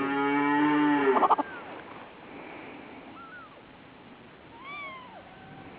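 Kittens mewing: a long, loud meow that breaks off about a second and a half in, then two faint, short, high mews.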